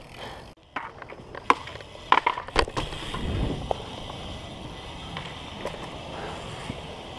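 BMX bike riding over skatepark concrete: sharp knocks and rattles from the bike in the first few seconds, then the steady rolling hiss of the tyres.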